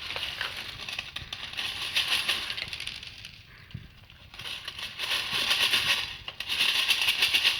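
A ferret digging in a dog bowl of dry kibble: rapid rattling and scraping of the pellets in bursts, with short pauses between.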